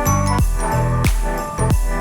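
Background music with a steady beat and high chiming notes.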